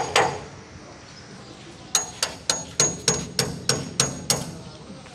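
Hammer blows on a steel punch held against a stuck nut, metal on metal with a short bright ring on each blow, to loosen it without a wrench. Two blows land right at the start, then after a pause a steady run of about nine blows, roughly three a second.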